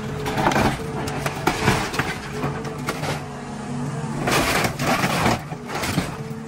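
Hydraulic excavator running steadily under load while its bucket crushes a pickup truck's cab, with scattered clicks and knocks of bending sheet metal. A louder rushing burst comes about four seconds in, as the bucket lifts and swings back down.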